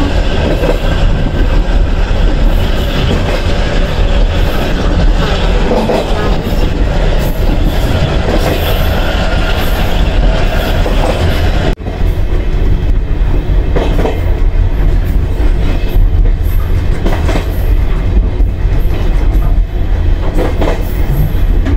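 Passenger train running on the track, a loud steady rumble heavy in the low end. It breaks off for an instant about halfway through.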